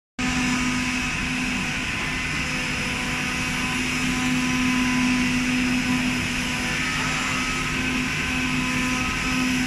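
CNC knife cutting machine running while its head cuts printed fabric: a steady machine hum with a strong low tone over a broad hiss.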